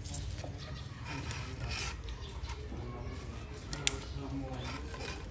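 Plastic lashing cord rubbing and scraping against bamboo poles as it is pulled and wrapped, a string of short rustling scrapes, with one sharp click about four seconds in. A steady low hum runs underneath.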